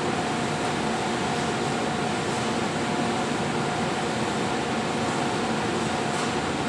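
Steady drone of factory machinery with a constant mid-pitched whine running through it.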